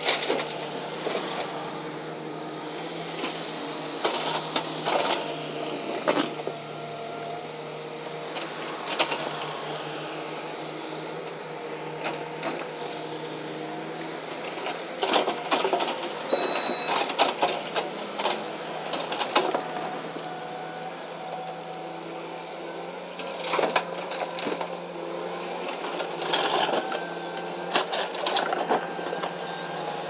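Kobelco hydraulic excavator working: a steady engine hum with short rising and falling hydraulic whines, broken by irregular clusters of clanks and knocks as the bucket digs dirt and loads it into a dump truck.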